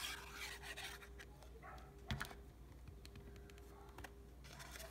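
Faint handling of cardstock: a short scrape of paper at the start, a light tap about two seconds in, and a soft rustle near the end, over a low steady hum.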